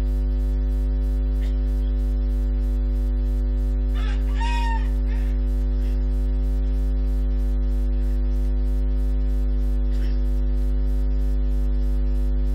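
Steady electrical mains hum from the microphone's sound system, with a short chicken call about four seconds in.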